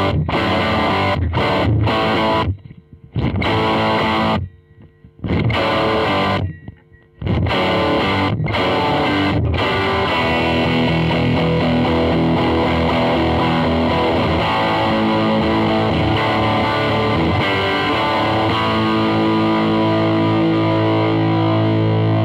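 Distorted electric guitar played through a Marshall Origin 20 combo amp with its 10-inch speaker, using a custom-shop '58 Les Paul. The player hits stop-start rock chords with short silent breaks for the first several seconds, then plays continuous riffs and ends on a held chord that rings out.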